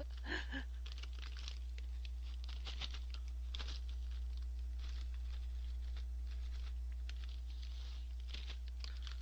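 Crinkly plastic snack bag of Gorae-bap crackers rustling and crackling as a hand rummages inside it, a quick irregular run of small crackles, over a steady low hum.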